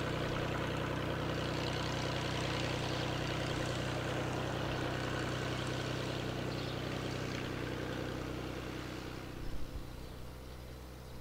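Beechcraft A36 Bonanza's piston engine and propeller running steadily at low taxi power. The sound grows fainter over the last few seconds, and there is a brief low thump about nine and a half seconds in.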